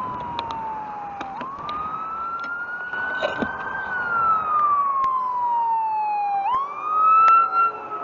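Fire truck siren sounding a slow wail, its pitch gliding down, up, down and up again over a few seconds each.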